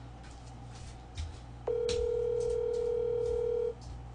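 Telephone ringback tone through a phone's speaker as an outgoing call rings: one steady tone of about two seconds, starting a little past halfway, over faint clicks.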